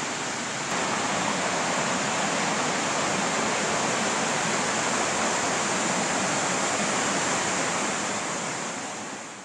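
Steady rushing of a waterfall, a dense even hiss of falling water that gets a little louder about a second in and fades out near the end.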